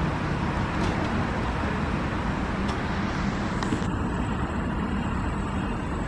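Steady outdoor background noise like passing road traffic, with a few faint clicks; the siren is not sounding.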